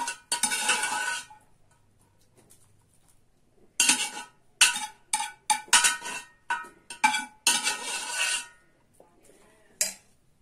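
Metal ladle clinking and scraping against metal cooking pots as cooked whole wheat is scooped out and transferred: a sharp clink and about a second of scraping, a pause of a couple of seconds, then a run of quick clinks and scrapes, and a last clink near the end.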